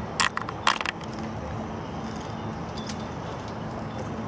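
Steady outdoor background rumble with a faint low hum. Two short, sharp sounds come about a quarter and three quarters of a second in.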